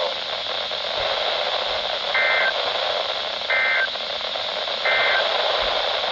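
NOAA Weather Radio broadcast over a weather radio receiver: steady static hiss with three short buzzy data bursts about 1.3 seconds apart, the SAME end-of-message code that closes an Emergency Alert System warning.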